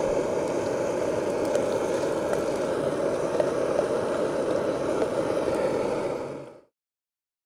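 Camping stove burning with a steady rushing noise, lit and running; it stops abruptly near the end.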